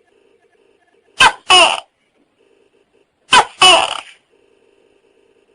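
Tokay gecko calling "to-kay" twice, about a second in and again past the middle: each call is a short sharp note followed by a longer one that falls in pitch.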